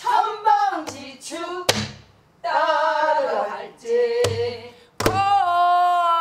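Female voice singing a pansori phrase in the long-drawn, ornamented style, with a few sharp strokes on a buk barrel drum beating the rhythm. Near the end she settles into a long held note.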